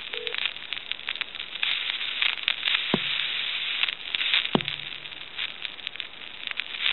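Crackling, popping and sizzling static on a telephone line from the handset's T1 carbon-granule transmitter, which is failing because its carbon granules no longer align properly. Dense crackle throughout, with two sharper pops about three and four and a half seconds in.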